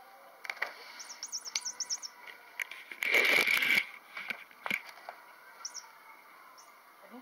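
Recorded bird sounds from a play-and-squeak blue jay cat toy: a quick run of about eight high chirps about a second in, then a louder call about three seconds in, with a few faint chirps after.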